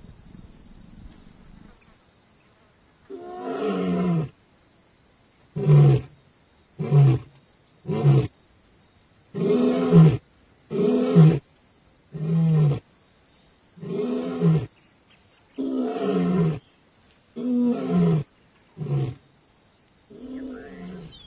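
Male lion roaring: a run of about a dozen roars of falling pitch that starts about three seconds in, some long and some shorter grunts, with short pauses between them.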